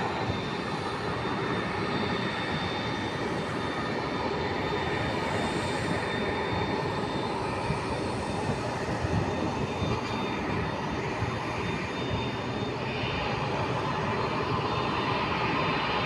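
Jet airliner's engines at takeoff power as it climbs away after takeoff: a steady broad engine noise with a thin high tone running through it.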